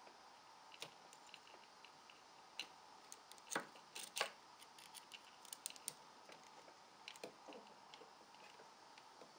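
Faint, scattered metallic clicks and clinks of a motorcycle cam chain and camshaft sprocket being handled while the chain is meshed onto the sprocket's teeth. The clicks come irregularly, with the loudest pair about three and a half and four seconds in.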